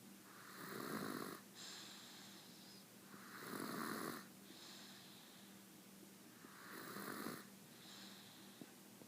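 A sleeping baby snoring: three snoring breaths about three seconds apart, each followed by a softer, hissing breath.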